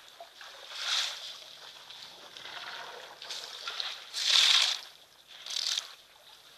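Water sloshing and splashing as elephants drink at the water's edge, coming in three bursts, the loudest about four and a half seconds in.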